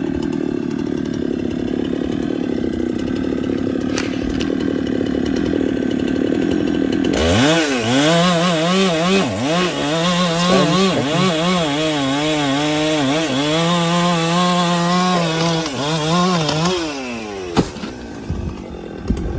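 Chainsaw engine running steadily, then revved hard about seven seconds in and cutting into wood, its pitch dipping and recovering as the chain bogs under load. Near the end the throttle is let off and the engine winds down, followed by a couple of sharp knocks.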